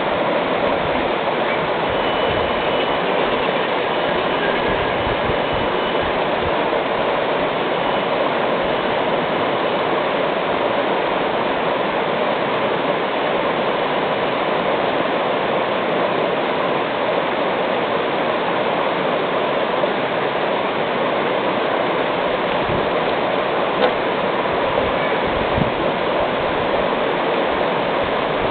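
Steady rush of water flowing over the rocks of a small creek, with no break or change.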